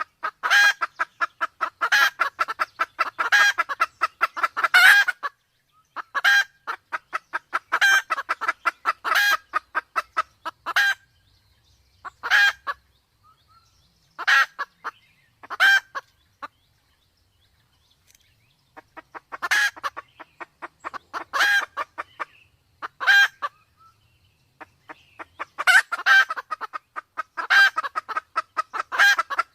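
Red junglefowl clucking: bouts of rapid, evenly repeated clucks lasting a second or two each, with a pause of about two seconds past the middle.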